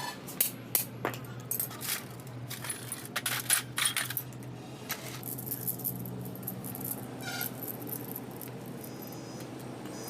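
Small metal parts clinking and tapping against each other in quick irregular clusters for the first few seconds, then only a few faint clinks over a steady low hum.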